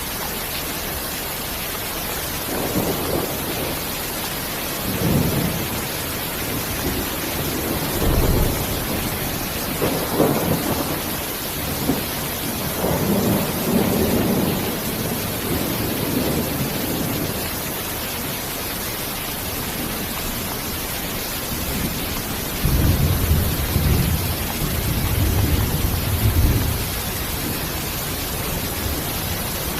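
Steady rain hiss with rolling thunder. The rumbles swell and fade through the first half and return in a shorter roll later on.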